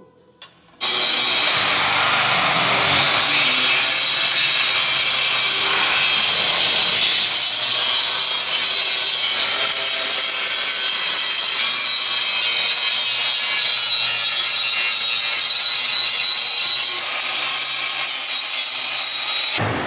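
Arc welder laying a continuous weld bead: a steady hiss that starts abruptly about a second in and cuts off just before the end.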